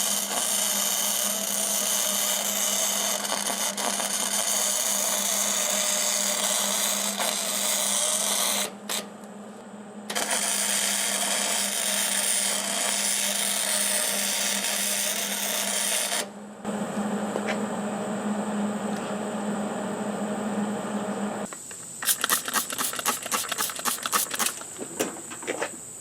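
MIG welder arc crackling and sizzling on a steel tractor wheel rim in two long runs, about nine and six seconds, with a short break between. A steady hum follows, and near the end comes a quick run of sharp clicks.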